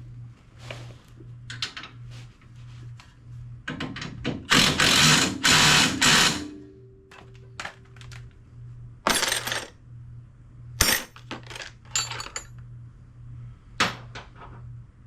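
Metal tools and parts clanking and knocking during suspension work, with a loud harsh burst lasting about two seconds near the middle, over a low steady hum.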